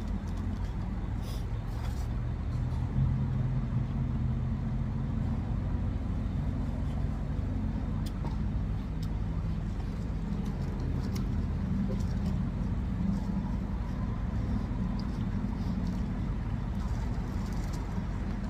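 An engine idling: a steady low hum with a few faint clicks over it.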